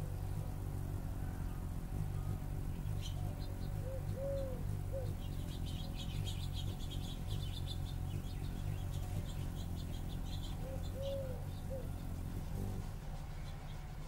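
A dove cooing in short series, one longer coo followed by shorter ones, about four seconds in and again near eleven seconds, while small songbirds chirp and twitter, busiest in the middle. A steady low hum runs underneath throughout.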